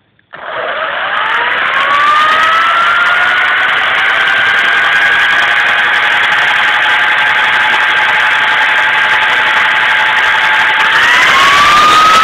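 Radio-controlled Shark 450 model helicopter starting up. Its motor and rotor whine rises in pitch over about two seconds, holds steady, then climbs again near the end.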